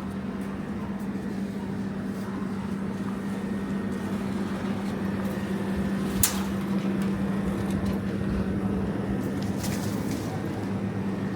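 An engine or motor runs with a steady, even hum over background noise. There is one sharp click about six seconds in.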